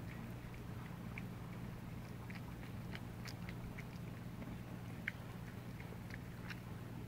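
Cats chewing and lapping wet canned cat food from bowls, making small irregular wet clicks and smacks over a steady low hum.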